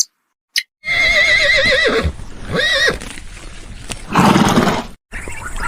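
Horse neighing: one long quavering whinny, then a shorter call, then a loud breathy blow about four seconds in.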